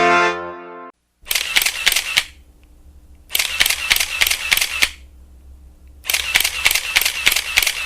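Camera shutter clicking sound effect: three bursts of rapid clicks, each a run of several sharp shutter clicks, with short pauses between. A sustained brass note from the preceding effect ends in the first second.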